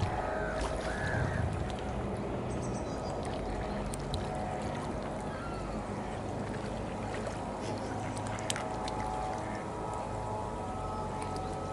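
A helicopter droning overhead, a steady hum of several tones. A few short bird calls come in the first seconds.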